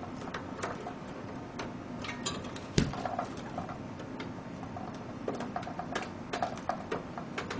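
Scattered light clicks and ticks of a power-supply cable and its 4-pin power connector being handled and pushed into an optical drive inside a computer case, with one louder knock about three seconds in.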